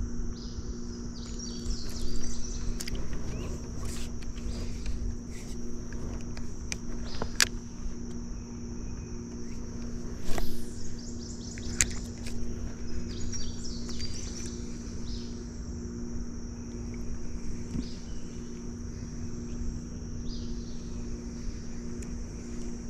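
Summer insects buzzing in a steady high drone, with a few short bird chirps and scattered sharp clicks and knocks over a low steady hum.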